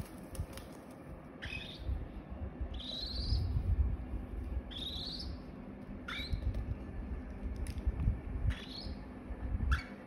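Baby cockatiels calling: about six separate chirps, some short and falling, two longer ones rising in pitch, over a low rumbling noise.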